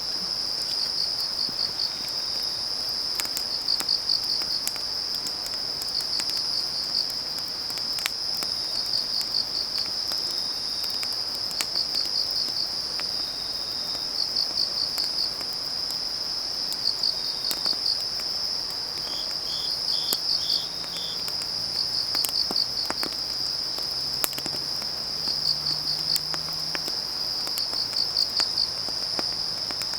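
Autumn field crickets and other grass insects: a steady high trill with a cricket chirping in pulsed groups about every two seconds, and a short run of four notes about two-thirds of the way in. Burning firewood crackles underneath with scattered small pops.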